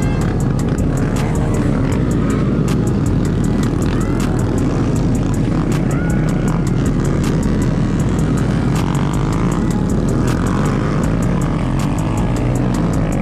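Motorcycle engines running and revving, their pitch rising and falling a couple of times, under background music with a steady beat.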